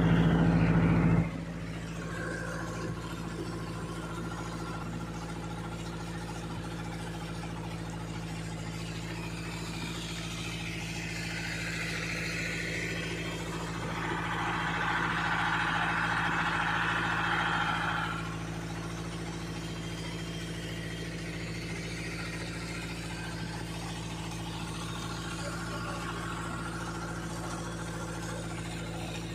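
Motorboat engine running steadily, with water rushing along the hull. A louder burst of noise comes in the first second, and the water hiss swells for several seconds around the middle.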